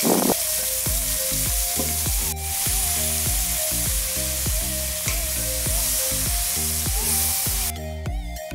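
Chopped onion, tomato and capsicum sizzling in hot oil in a kadai as they are stirred with a spatula, with one sharp knock about two seconds in; the sizzling cuts off shortly before the end. Background music plays underneath.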